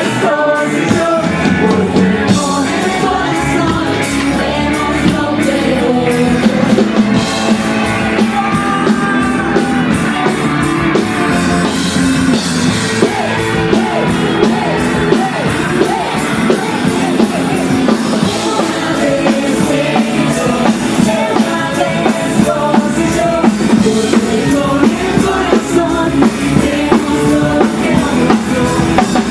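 A live band playing a pop-rock song, with singing over a steady drum beat.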